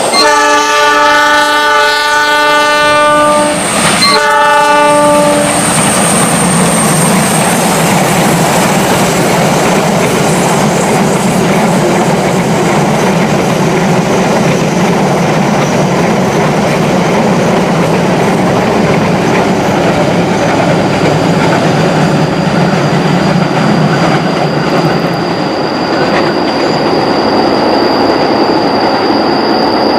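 Diesel locomotive horn sounding two blasts, a long one of about three and a half seconds and a shorter one just after, as the passenger train approaches. The long train then rolls past with the steady rumble and clatter of its wheels on the rails.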